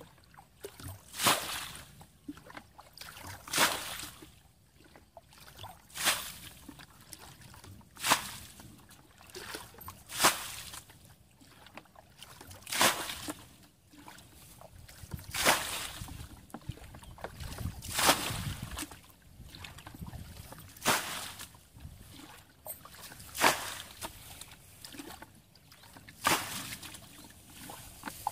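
Plastic bucket scooping water from a shallow muddy ditch and flinging it out, a splash about every two and a half seconds, as the ditch is bailed out by hand.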